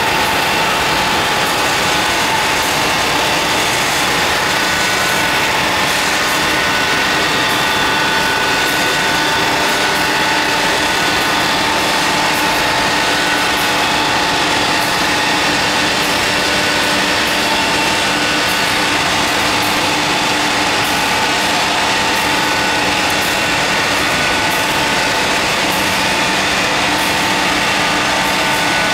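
Industrial continuous nut fryer and its conveyors running: a loud, steady machine noise with a constant whine and light, irregular ticking.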